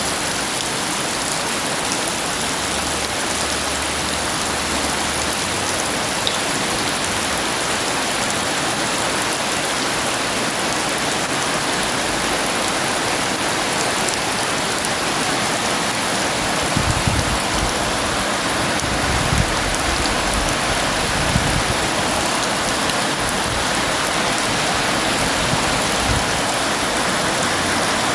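Heavy rain pouring down steadily. About halfway through, a low rumble rolls under it for several seconds, in keeping with distant thunder.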